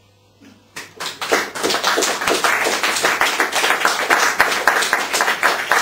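Audience applause: after a moment of quiet, clapping breaks out a little under a second in and quickly builds into steady applause.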